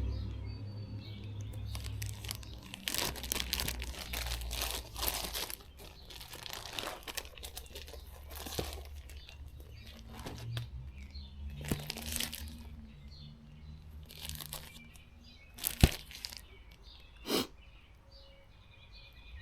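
Irregular rustling and crinkling, with a sharp click and a short knock near the end. Faint bird chirps can be heard behind it.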